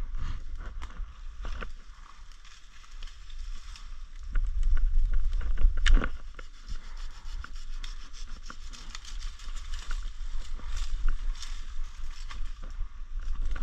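Leaves and branches rustling and scraping against the body and the camera as a person pushes on foot through dense brush, with irregular twig crackles throughout. A low rumble of wind or handling on the microphone swells about four seconds in, and a sharp crack, like a stick snapping, comes about six seconds in.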